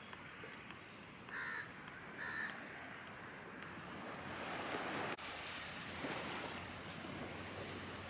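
Gentle surf washing on a sandy beach with wind on the microphone, and two short harsh bird calls, about a second apart, near the start.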